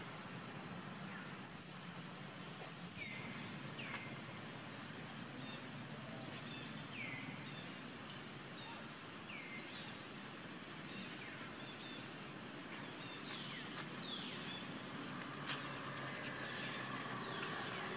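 Outdoor ambience: a steady background hiss with short, high falling chirps every second or two, and a few sharp clicks near the end.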